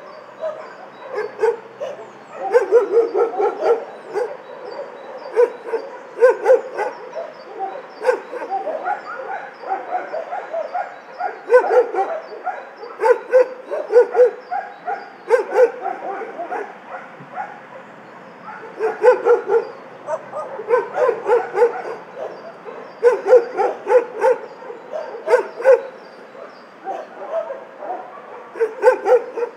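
Many dogs barking and yapping in an animal shelter's kennels, the barks coming in clusters every second or two with a short lull a little past halfway.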